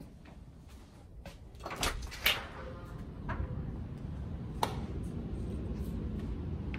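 Interior door opened: a knob-and-latch clatter about two seconds in, the loudest sound, followed by a single sharp click a few seconds later, over a low rumble that grows after the door opens.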